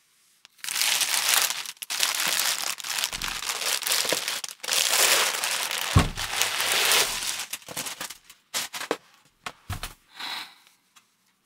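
Plastic wrapping bag rustling and crinkling as it is pulled off a wooden subwoofer cabinet, with a dull thump about six seconds in. After that, only a few short scattered rustles.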